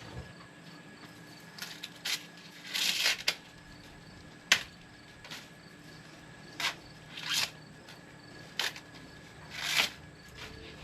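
Sweet corn leaves and husks rustling in short bursts, with a sharp snap about halfway through, as ears are pulled off the stalks. Insects chirp faintly underneath.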